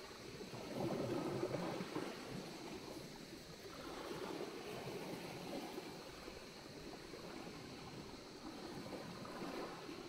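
Small waves lapping and washing on a pebble beach, rising and falling in gentle swells, the loudest wash about a second in.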